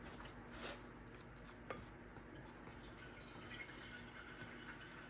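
Faint drips of water falling into pancake batter in a bowl as water is added a little at a time, with a soft tick about a second and a half in, over a low steady hum.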